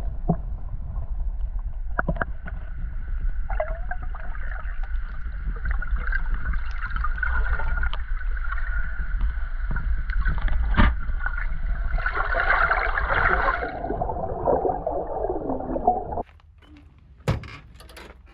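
Water splashing and gurgling over a heavy low rumble, cutting off abruptly about sixteen seconds in. Then it is much quieter, with a single sharp thunk about a second later.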